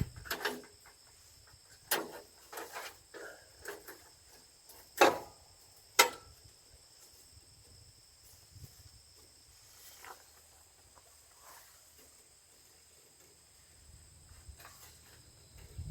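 Bandsaw blade being handled and fitted onto the wheels of a portable sawmill: scattered metallic clicks and knocks, with two sharper knocks about five and six seconds in, then only faint taps.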